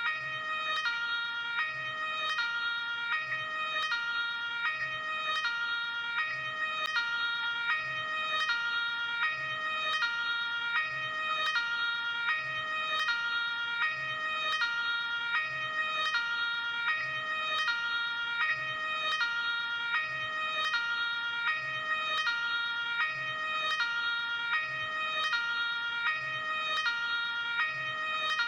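Luxembourg ambulance two-tone hi-lo siren sounding continuously, alternating evenly between a high and a low tone, each held a little under a second, with a faint click at every switch.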